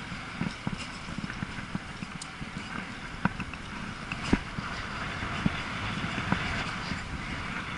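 E-bike riding along a street: steady rolling and wind noise with irregular knocks and rattles as the bike jolts over the road surface.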